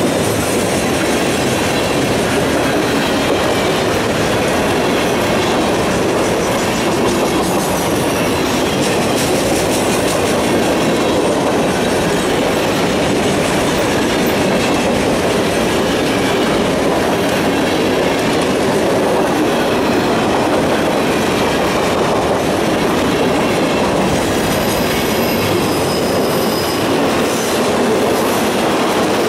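Freight train cars rolling steadily past on jointed track, a continuous rumble with clickety-clack from the wheels. A thin high squeal from the wheels shows near the end.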